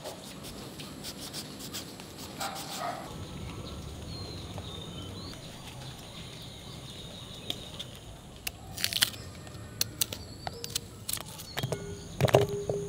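Outdoor ambience with a few faint bird chirps. In the second half come a series of sharp clicks and knocks from a kitchen knife cutting fruit over a glass bowl.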